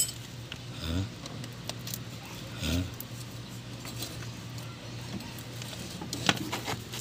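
Light metallic clicks and scrapes of a screwdriver prying at the lock on a driveshaft joint where it enters the transmission. Two sharper clicks come near the end.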